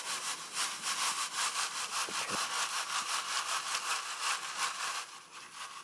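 Threshed sesame seed and chaff rasping in a plastic mesh sieve that is shaken rapidly back and forth, a rhythmic shushing of several strokes a second, with seed pattering through into a plastic tub. The shaking stops about five seconds in. This is sieving to separate the sesame seed from the large chaff.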